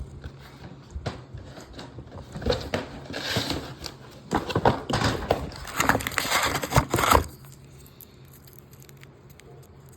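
Plastic packaging crinkling and rustling as a pack of firework artillery shells is handled and opened, in irregular bursts that stop a little after seven seconds in.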